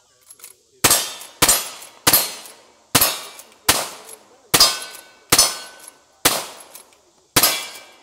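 Lever-action rifle fired in rapid string: nine sharp shots about 0.7 to 1 s apart, each dying away in a short echo.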